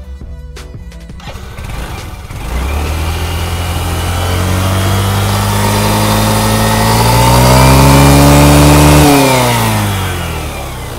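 Yamaha gearless scooter's single-cylinder engine catching about two seconds in after a fresh engine and gear oil change, then revving slowly higher for several seconds. Near the end it drops back as the throttle is let off.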